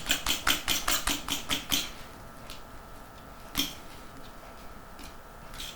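A rapid, even series of sharp knocks, about five a second, stopping about two seconds in, followed by three single knocks.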